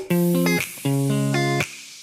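Background music: a guitar playing two short plucked chords with a brief pause between them.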